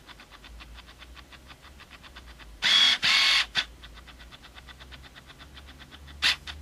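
Canon EF-S 18-55mm f/3.5-5.6 IS kit lens's autofocus motor hunting for focus, heard through the camera body: a rapid, regular ticking about eight or nine times a second, broken by louder whirring drives of the focus motor twice about two and a half to three and a half seconds in and once more near the end. The lens is slow to lock focus in movie mode.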